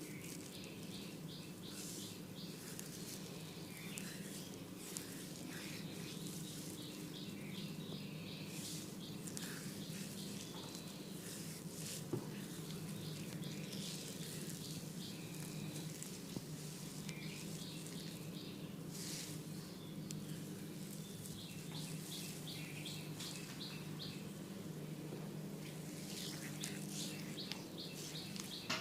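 Birds chirping in short repeated runs over a steady low hum, with faint rubbing of hands working an oiled scalp and one sharp click about twelve seconds in.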